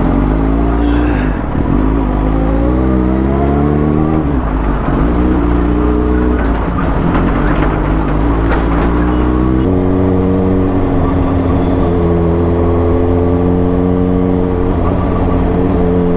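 Sport motorcycle engine under way, heard from the rider's seat: the revs climb and drop back several times over the first few seconds as it pulls through the gears, then settle into a steady cruising note about ten seconds in, over a constant rush of wind and road noise.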